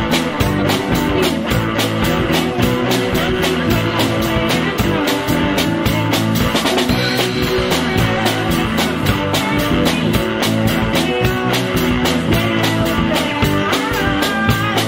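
Live rock band playing: electric bass, electric guitar and drum kit, with a steady, driving drum beat.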